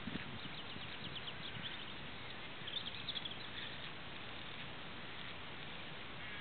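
Rural outdoor ambience: a small bird chirping in quick runs of high notes, loudest about three seconds in, over a steady background hiss.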